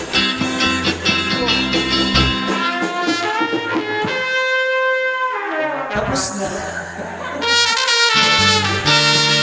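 Live band playing cha-cha: a trumpet plays the melody over acoustic guitar and drums. About midway the bass drops out and one long note is held, and the full band comes back in louder near the end.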